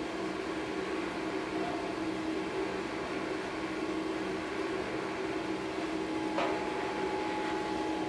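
Gas-fired forge burner running with a steady hum and hiss while a sword blade heats in it. A short clatter about six seconds in.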